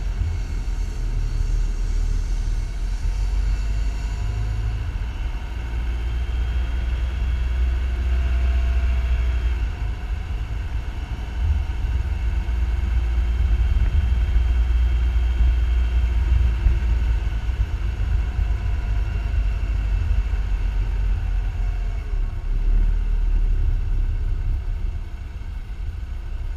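A car driving slowly along a street: a steady low rumble of engine and road noise, with faint whining tones that rise and fall, easing off near the end.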